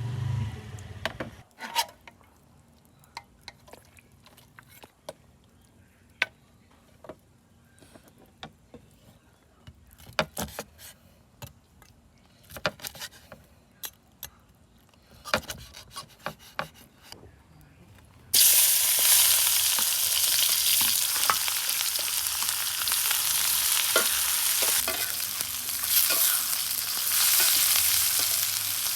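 Scattered clinks and knocks of kitchen utensils, then, about eighteen seconds in, a sudden loud sizzle as food starts frying in hot oil in a pan, going on steadily.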